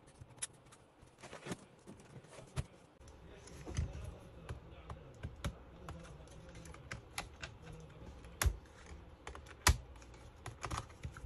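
Scattered light clicks and taps of fingers and a small screwdriver working on the screws and plastic and metal parts of an opened HP Omen gaming laptop's heatsink and fan area. Two sharper clicks come near the end.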